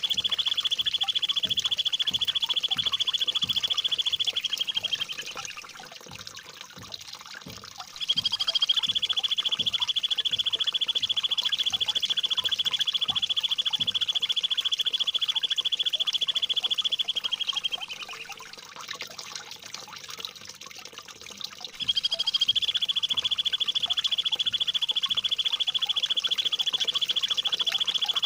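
Songbird delivering a long, high, very rapid rolling trill ('tembakan ngerol', a harsh, sharp masteran song). Each trill opens with a brief higher note, holds for several seconds, and drops in pitch as it fades. The trill comes three times with pauses between, over a steady trickle of water.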